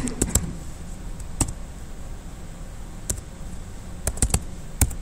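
Typing on a computer keyboard: a few scattered key clicks, with a quick run of keystrokes about four seconds in.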